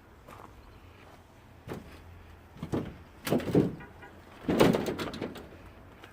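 Several knocks and thuds, a small one about a second and a half in, then louder bangs with a short rattle about three and four and a half seconds in.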